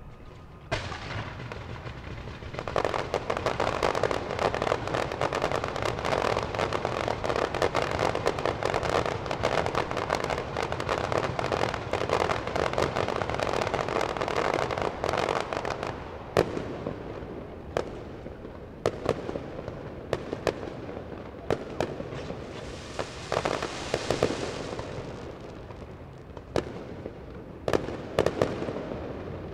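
Aerial fireworks display: a dense run of rapid crackling bursts for about thirteen seconds, then separate shell bangs every second or two, with a rushing hiss in between.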